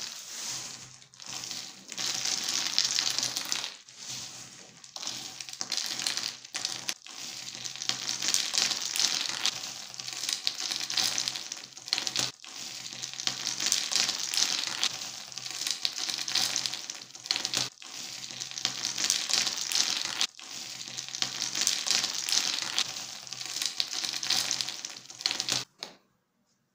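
Handfuls of tiny diced soap cubes scooped up and poured back through the fingers onto the table: a dense rustle of many small pieces falling, swelling and fading with each handful and stopping shortly before the end.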